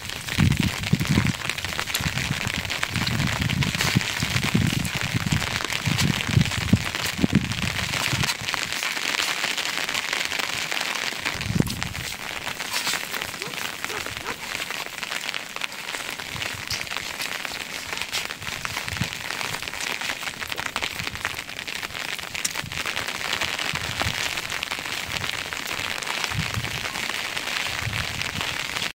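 Rain falling steadily, a dense patter of drops on surfaces.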